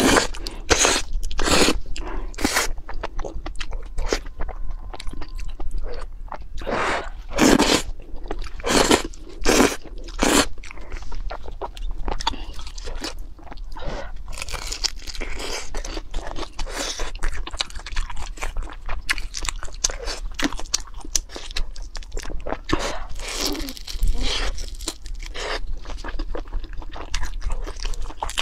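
Close-miked eating: noodles slurped in the first couple of seconds, then crunchy bites and chewing of a sauce-glazed fried roll, with louder strokes around 7 to 10 seconds in and a denser crackly chewing after.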